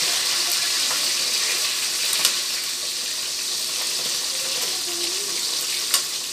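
Galunggong (round scad) frying in hot oil in a wok: a steady sizzle, with metal tongs clicking sharply against the pan twice as the fish is turned.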